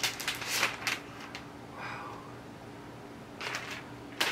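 Thin plastic protective film being peeled off a new laptop, crinkling and rustling in the first second, then a few softer rustles later on.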